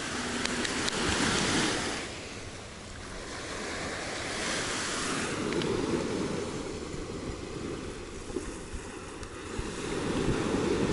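Small sea waves breaking and washing up a sandy beach, the surf swelling and fading about three times.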